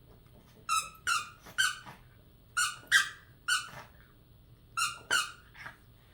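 Squeaker in a stuffed dog toy being squeezed: nine short, high squeaks in three quick groups of three, each squeak dipping slightly in pitch.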